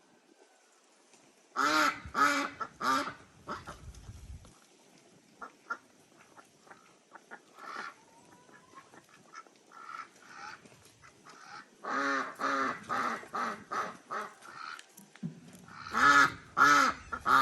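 Farm waterfowl honking: three loud calls about two seconds in, a run of them around twelve seconds, and two more near the end, with fainter scattered calls in between.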